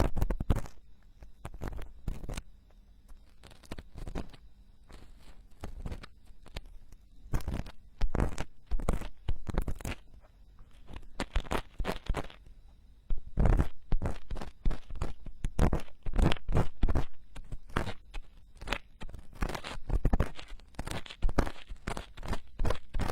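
Ear-cleaning tools scraping and rubbing inside silicone binaural microphone ears, close-miked, in irregular runs of short crunchy strokes that grow louder and denser about halfway through.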